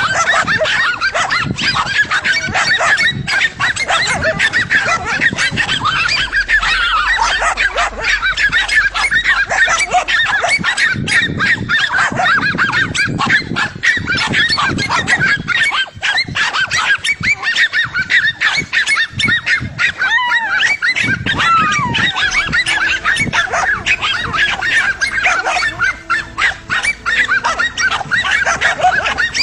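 A pack of dogs barking rapidly and continuously, several voices overlapping, at a cornered lizard.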